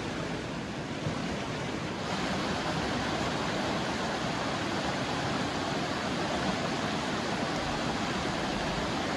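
Steady rush of a full-flowing river, a little louder from about two seconds in.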